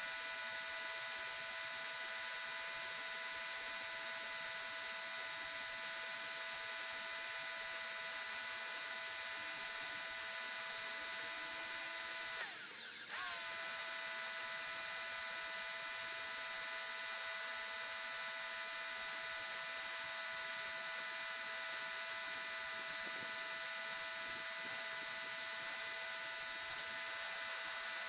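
Portland electric pressure washer running, a steady motor whine over the hiss of the spray. About halfway through it briefly dips and sags in pitch, then picks straight back up.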